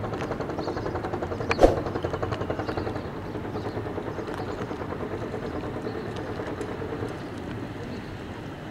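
Diesel engine of a river boat running with a fast, steady throb. A single sharp clang comes about a second and a half in.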